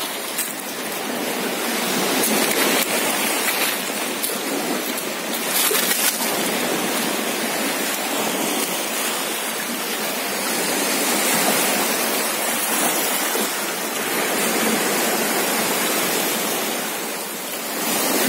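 Sea waves breaking and washing over a pebble beach: a steady rushing that swells and eases every few seconds.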